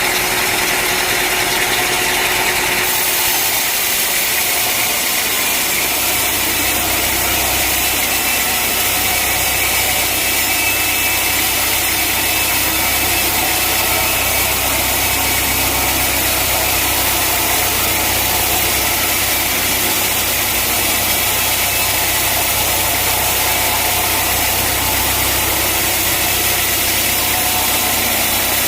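Sawmill machinery running steadily with continuous engine noise, a low hum setting in a few seconds in.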